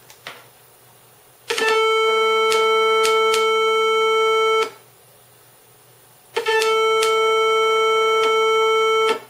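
A 442 Hz triangle-wave test tone played through a small speaker driven by a PAM8403 class D amplifier board. It sounds twice, each time for about three seconds, and starts each time with a click as the speaker is connected as the load.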